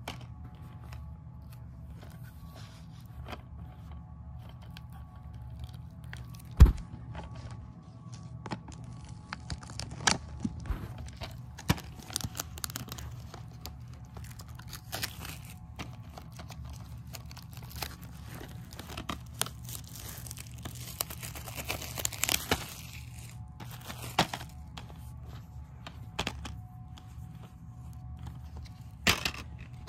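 Plastic shrink-wrap being torn and peeled off a DVD case: crinkling and crackling with scattered clicks from the plastic case, busiest about a third of the way in and again about three-quarters through. A single sharp knock comes about seven seconds in.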